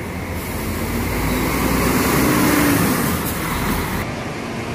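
Diesel coach driving past at close range, its engine and tyres getting louder to a peak and then fading. The sound changes abruptly about four seconds in, at a cut, to a lower steady rumble.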